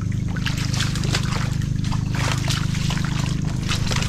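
Footsteps squelching and sloshing through wet mangrove mud, a few wet steps a second, over a steady low hum.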